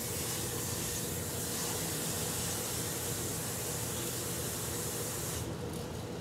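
Kitchen tap running into a container to draw water for thinning the chili: a steady hiss that cuts off about five and a half seconds in.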